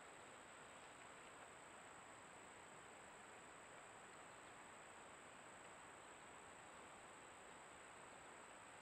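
Near silence: a trail camera's faint steady hiss, with a thin high steady tone underneath.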